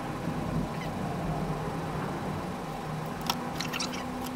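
Handling noise of paper card and copper foil tape on a wooden tabletop over a steady low hum, with a sharp click about three seconds in followed by a few small ticks.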